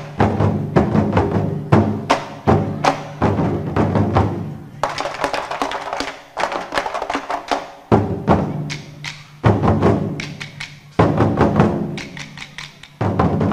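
Tây Sơn-style drum music: an ensemble of barrel drums beating in fast runs of strokes over a low backing. The drumming comes in phrases that fade and then break in again sharply several times.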